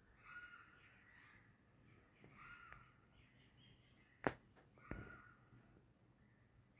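Faint, harsh bird calls repeating every one to two seconds, about four in all, with two sharp clicks a little over half a second apart about four seconds in.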